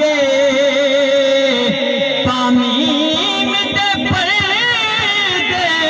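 A man singing a devotional song into a microphone, amplified through a PA loudspeaker, holding long ornamented notes with wavering pitch.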